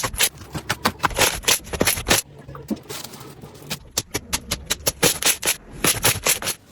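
Slime being squeezed and pressed, giving a run of sharp, irregular crackling clicks and pops, several a second, with two brief pauses.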